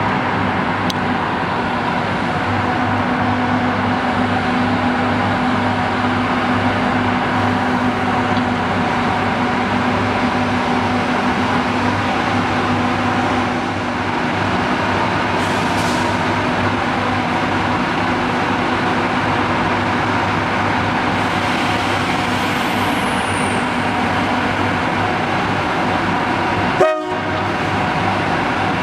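Locomotive running steadily nearby at night, a continuous noise with several held tones. A short sharp knock comes near the end.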